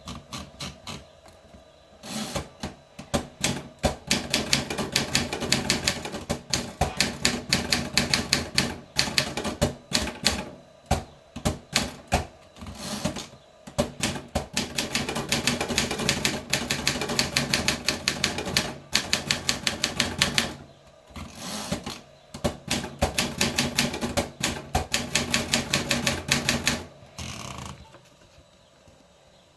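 Continental Wanderer 340 manual typewriter being typed on: rapid runs of key strikes, several a second, broken by short pauses, stopping near the end.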